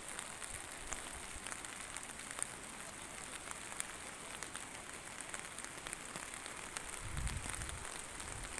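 Rain falling steadily as an even hiss, with scattered drops ticking close by. There is a brief low rumble near the end.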